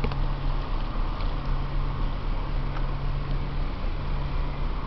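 Steady low hum of the freighter Algoma Transport's engines as she passes, over a constant deep rumble.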